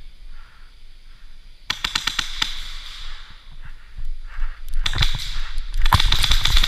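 Airsoft guns firing rapid strings of shots, starting about a second and a half in, thinning out, then heavier firing over the last two seconds.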